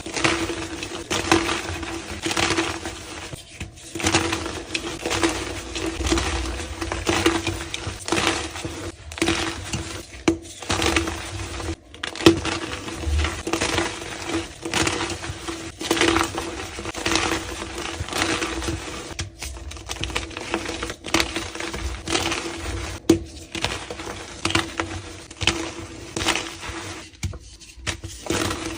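Reformed gym chalk blocks being crushed and crumbled, a dense run of crunchy crackles with a few brief pauses. A steady low hum runs underneath.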